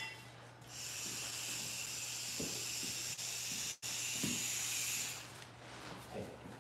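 Handheld propane torch hissing as gas streams from the nozzle. It starts just under a second in and cuts off about five seconds in.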